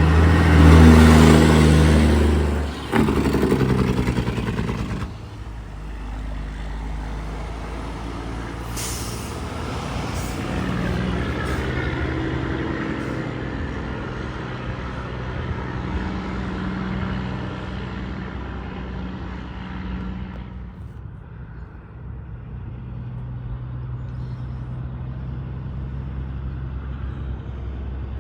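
Heavy trucks passing on a road: one passes loudly with its engine drone for the first few seconds and fades about five seconds in. A brief sharp hiss comes about nine seconds in, then other engines rise and fall as more traffic goes by.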